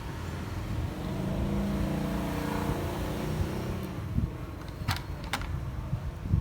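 A motor vehicle's engine rumbling past, loudest in the middle, followed by two sharp clicks about a second before the end.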